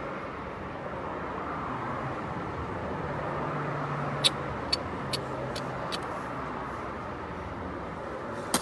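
Steady traffic noise in the background, with a quick run of five sharp clicks about halfway through and one more click near the end.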